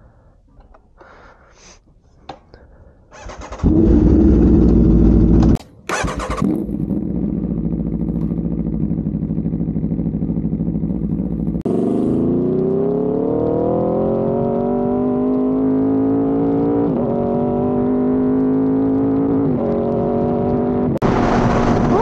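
Aprilia RSV4 1100 Factory's V4 engine with an SC Project exhaust starting up about three seconds in. It drops out briefly, then picks up again and runs steadily. From about halfway its pitch climbs steadily as the revs rise, with a couple of short breaks.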